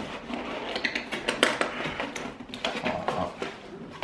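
Cardboard and plastic packaging being handled and pulled apart, a busy run of small clicks, taps and crinkles.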